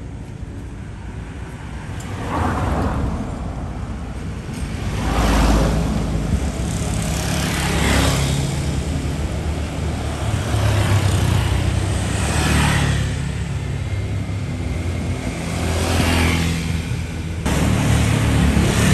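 Road traffic: vehicles passing one after another, each pass a swell of engine and tyre noise over a steady rumble, about five passes in all.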